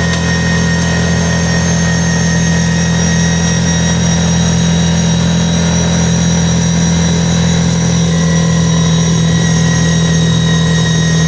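Kawasaki Teryx side-by-side's engine running steadily while cruising, a constant low drone with a thin high whine over it.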